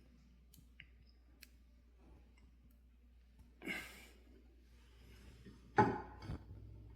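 Faint clicks, then two short breath-like rushes of noise, about four and six seconds in, the second the louder.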